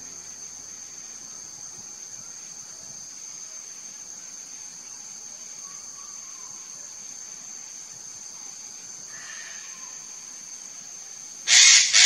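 Steady high-pitched drone of insects in tropical forest. About half a second before the end, a run of loud, harsh bird calls breaks in, several in quick succession, far louder than the drone.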